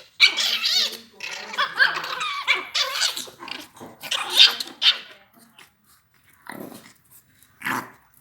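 Chihuahua puppies growling and yapping as they play-fight, the sounds dense for about five seconds, then two short yaps near the end.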